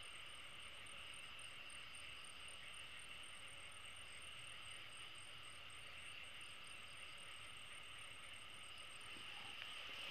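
Night chorus of crickets and other insects: a steady, faint, high-pitched drone with a fast pulsing trill above it.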